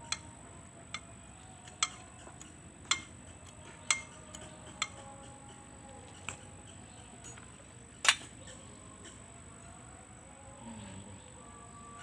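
Sharp metal clinks and knocks of tools and parts being handled while a generator engine is taken apart: about eight separate strikes at irregular intervals, the loudest about eight seconds in.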